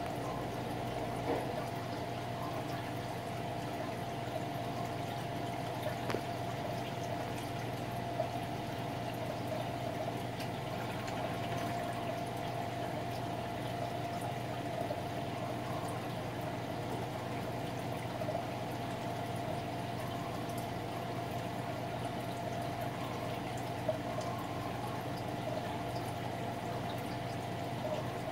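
Water running through an aquarium sump, a steady flowing, trickling noise over a steady hum, with a few faint ticks.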